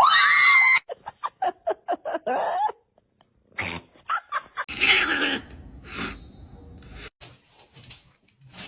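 Domestic cat calling: a long gliding yowl that breaks off within the first second, then a quick run of short chirping calls. After that come a few seconds of scuffling noise and scattered knocks.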